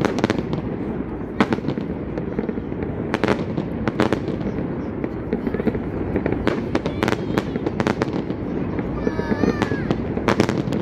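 Fireworks bursting overhead in an irregular run of sharp bangs and cracks, over steady background chatter. A short wavering high tone sounds near the end.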